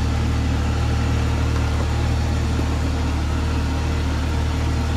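Car engine running steadily at low revs, a low even hum, as the car creeps along with a tyre rolling over loose rocks to compact them.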